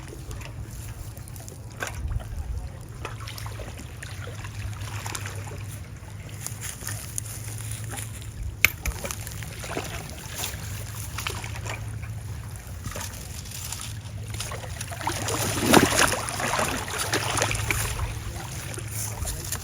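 Water sloshing and trickling around a kayak on a lake, with a sharp click about nine seconds in and a louder stretch of splashing and sloshing near the end.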